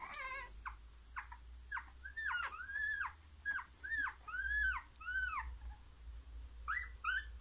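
Newborn puppies, eyes not yet open, whimpering and squeaking: a string of about a dozen short high calls, each rising then falling in pitch, with a lull a little past the middle.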